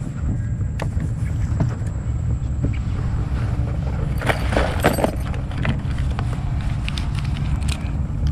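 Handling noise in a small inflatable boat: scattered knocks and rustles, busiest about halfway through, as a freshly landed snakehead on a soft-plastic lure and the rod are handled. Under it runs a steady low rumble.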